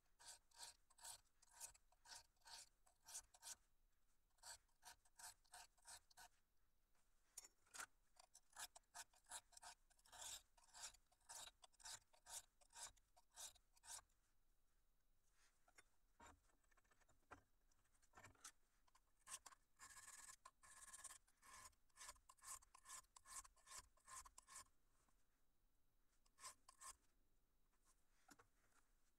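High-carbon steel knife blade stroked across the coarse side of a two-sided sharpening stone to establish an edge: a faint scrape with each stroke, about two strokes a second, in runs broken by a few pauses.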